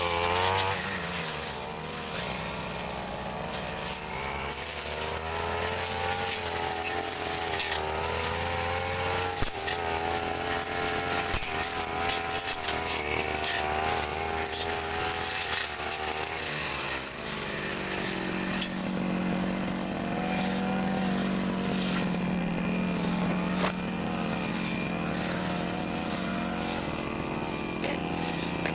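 Two-stroke brush cutter engine running continuously while cutting grass, its pitch wavering with the load. About two-thirds of the way through it settles into a higher, steadier tone.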